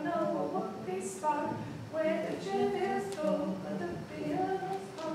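Vocal music: singing voices holding and changing notes, a song to which the dancers move.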